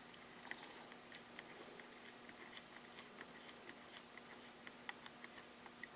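Faint, irregular small clicks and ticks, a few a second, of a screwdriver turning a small screw into the plastic joint of an N scale articulated auto carrier. A low steady hum runs under them.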